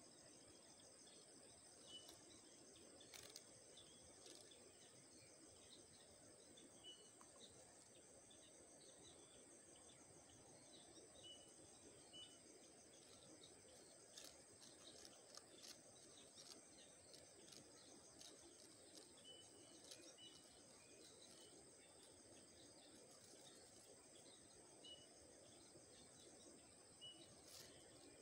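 Near silence: a faint, steady, high-pitched insect chorus, with short high chirps now and then and a few faint clicks.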